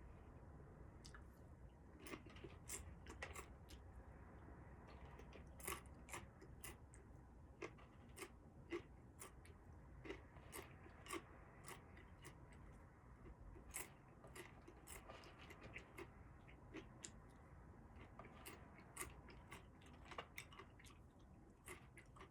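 Faint chewing of a crunchy snack: irregular sharp crunches, a few each second, close to the microphone.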